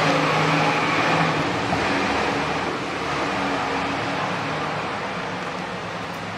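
Steady din of a claw-machine arcade: a constant wash of machine noise, with a few held low tones in the first half that fade out.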